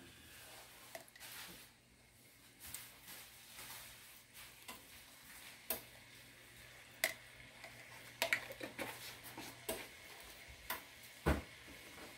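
Spoons clinking and tapping against a pot of chopped tomatoes as seasoning paste is spooned in, in scattered light clicks with one louder knock near the end.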